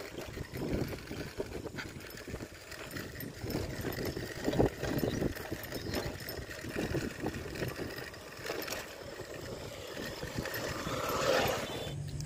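Bicycle ridden along a rough concrete path: an uneven low rumble from the tyres with irregular rattles and knocks. There is one sharper knock about four and a half seconds in, and a brief louder rush near the end.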